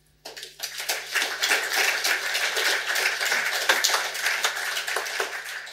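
Audience applauding: many hands clapping, the applause swelling within the first second and then holding steady.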